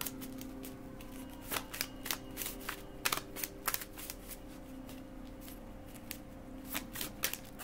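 A deck of tarot cards being shuffled by hand: irregular soft clicks and flicks of the cards, several to a second at times, over a steady low hum.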